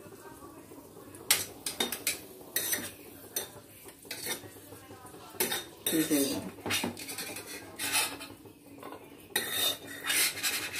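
Steel spoon scraping and clinking against stainless steel cookware in irregular bunches of strokes, as cashews browning in ghee are stirred in the bowl and spooned out onto a steel plate.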